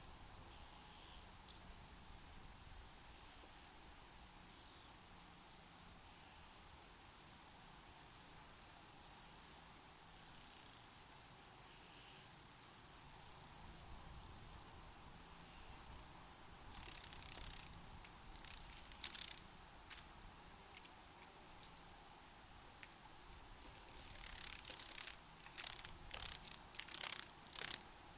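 A cricket chirping in an even train of short high chirps, about three a second, over a faint steady hush. Later on, clusters of louder, short hissy rattles come in.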